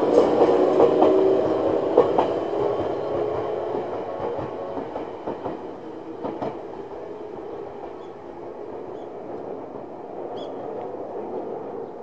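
Ueda Electric Railway 1000-series electric train passing over a level crossing and pulling away, its wheels clacking over rail joints. The sound fades steadily as the train recedes.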